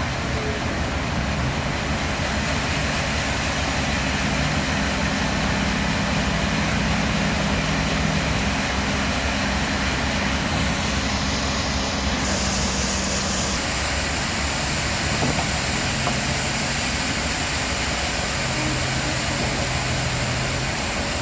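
Sawmill machinery running: a steady engine hum under a constant noisy din, its pitch stepping up and down a few times.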